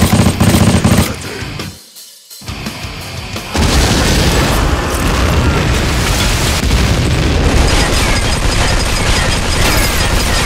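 Action-film sound effects: a loud boom in the first second, then from about three and a half seconds in sustained rapid gunfire, with music underneath.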